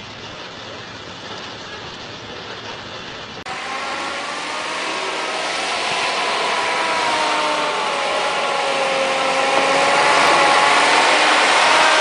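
Dump truck engine running under load, growing steadily louder as the truck approaches, with a droning whine that wavers slightly in pitch. It starts abruptly about three and a half seconds in, after quieter outdoor noise.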